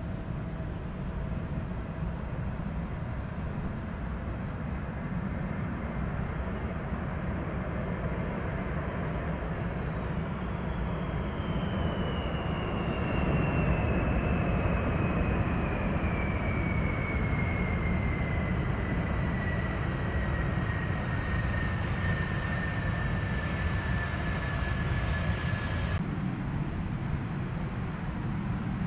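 Boeing 747 jet engines: a steady low rumble with a high turbine whine that slowly falls in pitch as the jet passes. The whine stops abruptly near the end.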